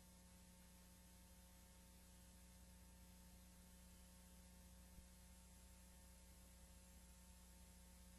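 Near silence: a faint steady mains hum with hiss from a VCR playing a blank stretch of videotape, with one tiny tick about five seconds in.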